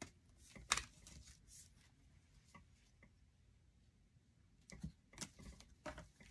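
Hockey trading cards being flipped through and handled by hand: faint scattered flicks and taps, with a sharper one about a second in and a cluster of them near the end.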